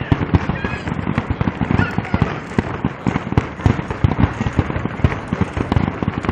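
Fireworks display going off in a rapid run of booms and crackling bangs, several a second without a break.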